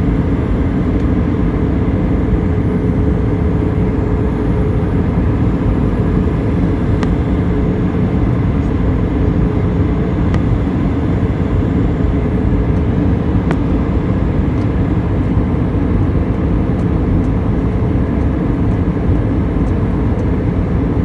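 Steady cabin noise of a passenger aircraft in flight, the engines and airflow heard from inside, with a faint held hum over the first half and a couple of light ticks.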